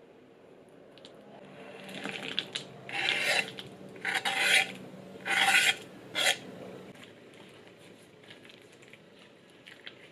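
A silicone spatula scraping chopped chocolate off a wooden cutting board into a mixing bowl: about four loud scraping strokes in the first half, then only faint sounds.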